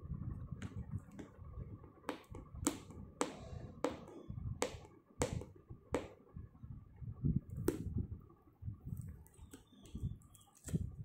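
Hands prying open a paperboard retail box: a string of sharp, irregularly spaced clicks and snaps from the flap and fingers on the card, over a low rumble of handling.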